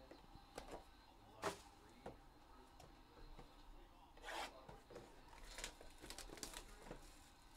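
Faint hand handling of trading-card packaging: a sharp tap about a second and a half in, a short scratchy rustle in the middle, then a run of light clicks and rustles.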